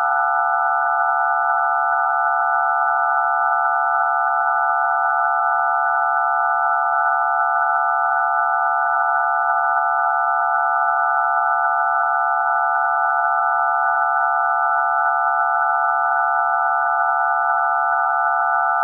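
DTMF telephone touch-tones for digits 0 to 9 sounding together as one loud, steady, unbroken chord of pure tones: the four low and three high keypad frequencies all at once.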